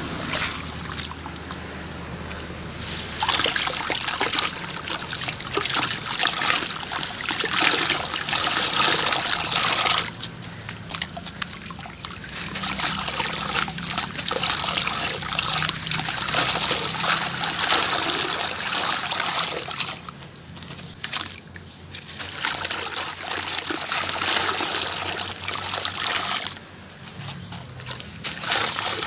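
Wet, gritty sand-cement with small stones crumbling between hands over a bucket of water, grit and water trickling and splashing back in. It comes in several long spells with short quieter pauses between them.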